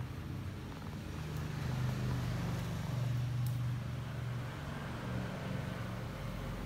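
A low, steady machine hum, like a motor running, with a faint background hiss.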